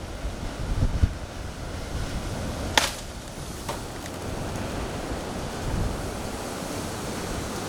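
Wind during a wind storm buffeting the microphone: gusty low rumble at first, settling into a steady rush of noise. A sharp click about three seconds in, and a fainter one shortly after.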